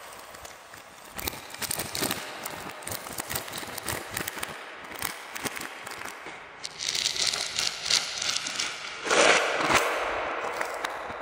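Plastic candy packaging crinkling and crackling in many quick clicks as it is handled and peeled off. Near the end comes a louder rustling tear as a cardboard candy box's flap is pulled open.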